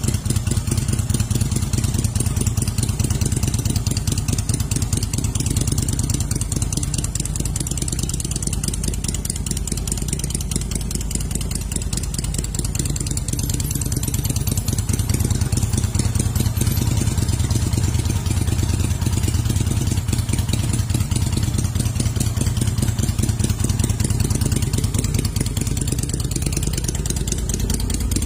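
Kaisar Ruby 250 motorcycle's V-twin engine idling steadily with an even throb, easing slightly and picking back up about halfway through.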